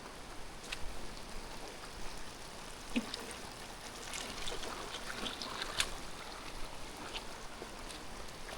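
Rain falling steadily, with scattered sharp drips and ticks of drops striking nearby surfaces.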